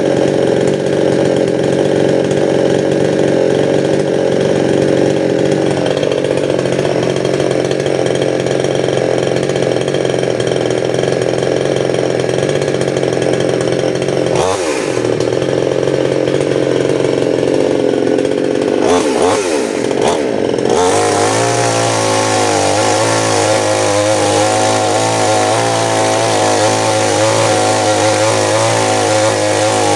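Stihl 799 two-stroke chainsaw engine running loud and continuously. Its pitch dips and recovers about halfway through and again a few times a little later. The note then changes to a lower, wavering tone for the rest.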